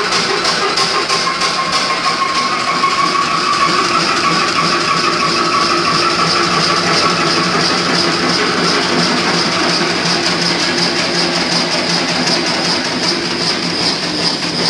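Crossley OE1 horizontal oil engine running steadily, its single cylinder firing in a fast even rhythm. A higher whine swells and fades in the first half.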